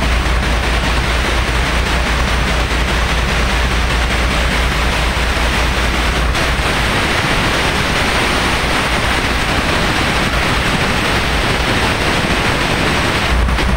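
Compressed air hissing steadily out of an air tank's opened drain valve, blowing out a spray of water: the tank has collected a lot of condensate. A low rumble under the hiss drops away about six seconds in and comes back near the end.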